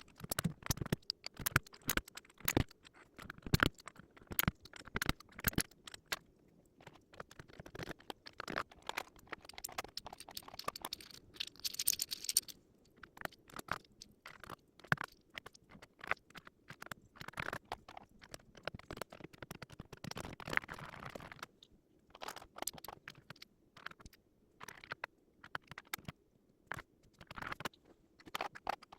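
Irregular small plastic clicks, taps and scrapes of mechanical keyboard parts being handled and fitted during assembly, with a brief crinkly rustle about twelve seconds in.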